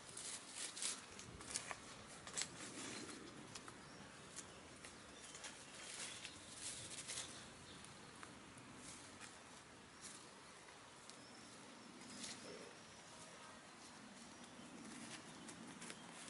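Hens foraging in grass, with faint scattered ticks and rustling as they peck and scratch. The ticks are busiest in the first couple of seconds and again about six seconds in.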